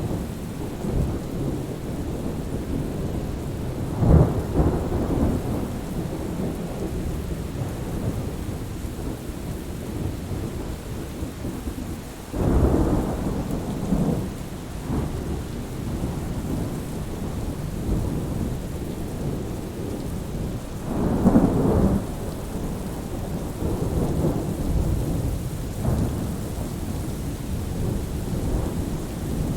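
Thunderstorm: steady rain with low rolls of thunder that swell and fade about four times.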